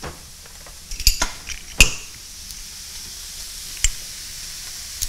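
Metal kitchen utensils clinking as a drawer of tools is rummaged through: a handful of sharp clinks, the loudest about two seconds in. Underneath, a steady sizzle of meat frying in a pan.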